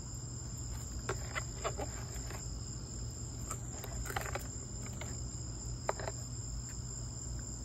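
Crickets chirring in a steady high drone, with scattered short knocks and slaps as cleaned fish are lifted and shifted in a plastic bucket.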